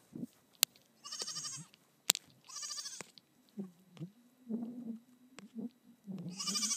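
Nigerian Dwarf goat kid bleating: three short high-pitched bleats, about a second in, near three seconds and again at the end. Two sharp clicks come in the first two seconds, and softer low sounds fill the gap in the middle.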